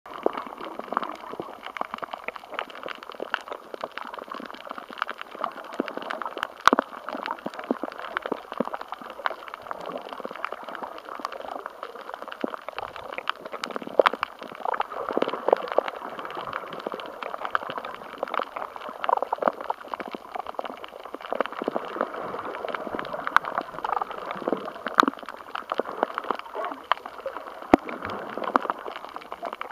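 Underwater coral-reef ambience: a steady watery wash with a constant irregular crackle of small clicks and pops.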